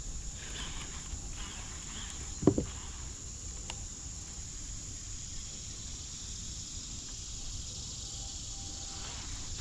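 Insects buzzing steadily at a high pitch over a low rumble, with a single sharp thump about two and a half seconds in.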